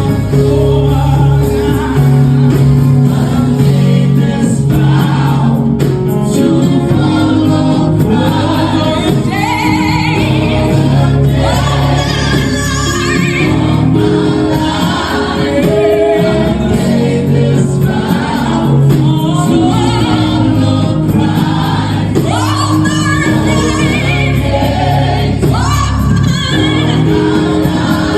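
Gospel music with a choir singing over a steady accompaniment.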